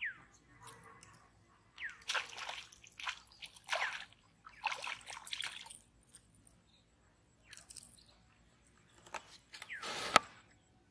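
Several short bursts of splashing as a hooked fish is pulled through the pond water and lifted out on a fishing rod, the sharpest one near the end.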